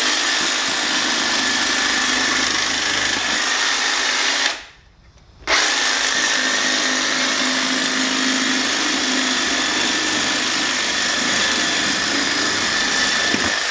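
Milwaukee M18 cordless hedge trimmer running at a steady speed, its blades reciprocating. It runs for about four and a half seconds, stops for about a second, then runs again.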